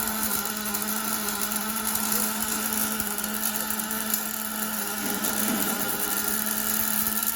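Welding arc of a 5-axis CNC welding machine running a weld: a steady hiss with a low hum underneath, cutting off right at the end.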